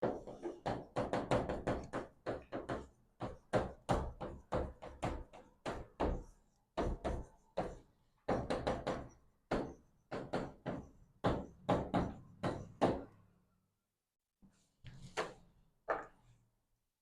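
Rapid, irregular taps and knocks in quick runs with short pauses, thinning out after about thirteen seconds to a few last taps near the end.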